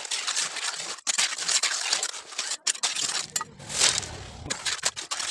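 Steel mason's trowel scraping and pushing wet concrete full of coarse gravel, a run of irregular gritty scrapes and crunches. About three seconds in, more concrete drops in from a tipped pan.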